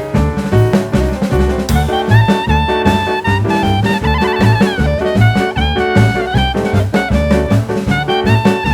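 Background jazz music with a steady drum beat and bass, and a horn line playing held, bending notes from about two seconds in.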